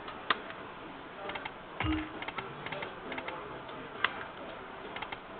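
Lightning Link video slot machine spinning: a run of light clicks and ticks as the reels play out, with two sharper clicks, one just after the start and one about four seconds in, over faint music.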